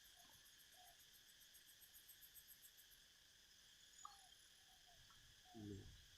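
Faint steady chorus of crickets and other insects, with a fast pulsing high trill during the first few seconds.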